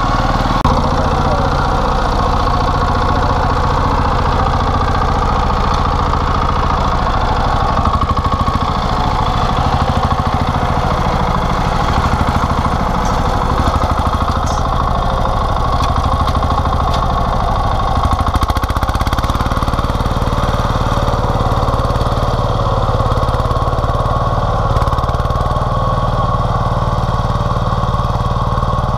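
Tobata walking micro tractor's single-cylinder diesel engine running steadily under load as it works wet soil.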